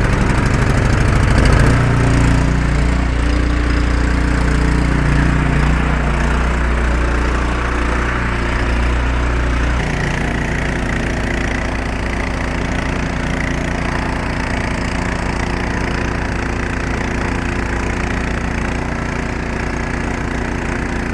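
An engine running steadily; about halfway through its note changes and it runs a little quieter.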